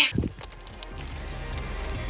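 Quiet background music with a few faint taps over it, after a short loud sound right at the start.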